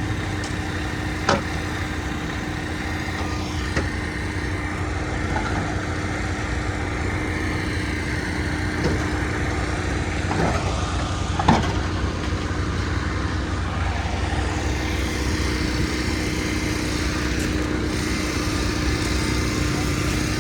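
Engine of a concrete mixer truck running steadily, with a steady hum and a couple of brief sharp clicks.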